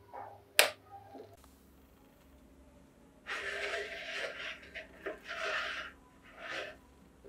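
A sharp click about half a second in as a plastic spoon knocks against a plate of ground paste. Then, from about three seconds in, several bursts of rubbing and scraping as hands work at the paste-clogged cutting plate of a cast-iron meat grinder.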